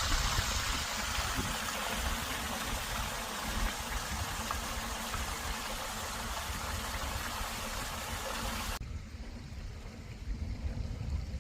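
Wind buffeting the microphone in a flickering low rumble, with a steady hiss over it. About three-quarters of the way through, the hiss cuts off suddenly and only the rumble remains.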